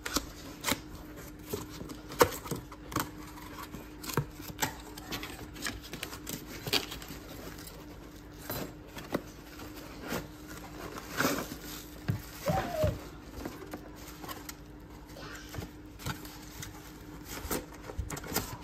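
A cardboard box being opened and unpacked by gloved hands: irregular taps, knocks and scrapes of the cardboard flaps and packaging, with a brief squeak about twelve seconds in, over a faint steady hum.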